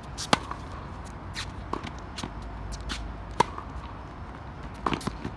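Tennis rally on a hard court: sharp pops of the ball off the strings and its bounces on the court, the loudest hits about a third of a second in and about three and a half seconds in, with shoes scuffing on the court between shots.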